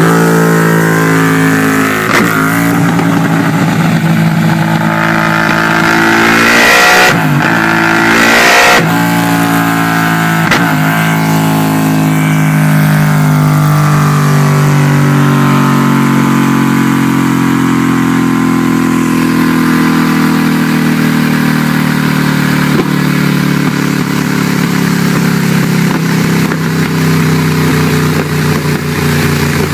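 Cagiva Raptor 1000's V-twin engine revving on a dynamometer: several short throttle blips, then a long sustained run at high revs that eases off to steadier running near the end.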